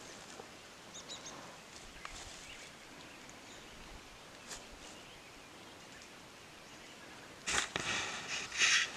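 Quiet open-air background with a few faint ticks, then about seven and a half seconds in a louder burst of rustling and handling noise as the camera swings through dry grass.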